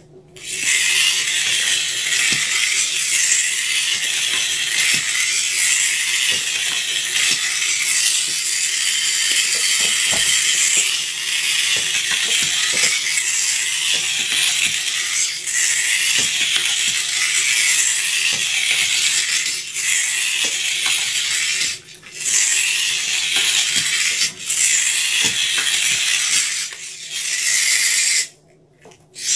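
Battery-powered toy tank running: its small electric motor and plastic gears give a steady, loud whirring buzz. The buzz cuts out briefly twice late on and stops near the end.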